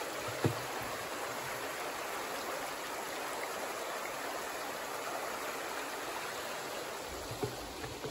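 Small mountain creek flowing steadily over rocks, an even babbling rush of water. A single knock about half a second in and a couple of light taps near the end.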